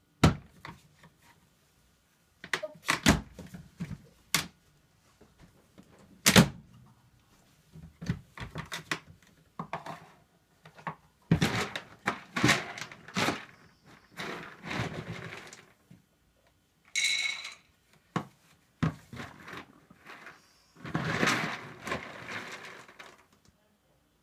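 Dog food being scooped from a plastic storage bin into dog bowls: a string of sharp knocks and clatters, with longer rattling pours of food.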